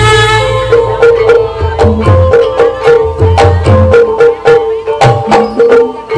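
Live Javanese gamelan music accompanying an ebeg dance: quick hand-drum strokes and deep drum beats over a steady held note.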